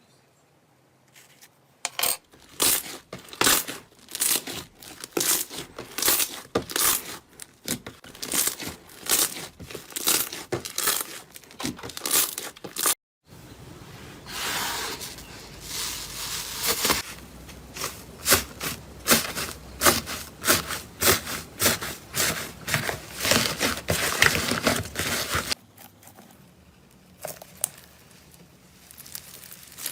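Slime being squeezed and pulled by hand, making rapid crackles and pops. About thirteen seconds in the sound cuts out briefly, and the next part has a steadier crinkling hiss under the crackles, which fades to quieter handling near the end.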